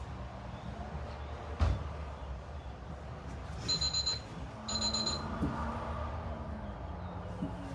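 Electronic alarm beeping in two short bursts of rapid, high-pitched beeps about a second apart, near the middle. A single thump comes about a second and a half in, over a steady low hum.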